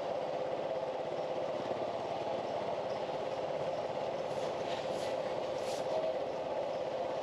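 Steady mechanical drone with a constant hum, like a motor or engine running, with a few faint short hisses about four to six seconds in.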